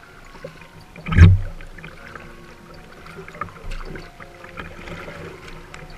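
Kayak on the water, with paddling and water sounds and scattered light knocks, and one loud thump about a second in.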